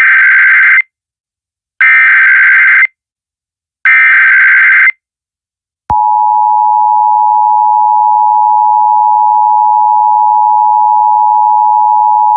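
Emergency Alert System SAME header: three harsh, screechy digital data bursts about a second long and a second apart, encoding the child abduction emergency alert. About six seconds in, the EAS two-tone attention signal starts, a loud steady two-note beep warning that an emergency announcement follows.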